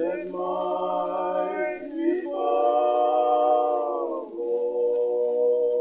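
A cappella choir singing three long held chords, changing chord about two seconds in and again about four seconds in.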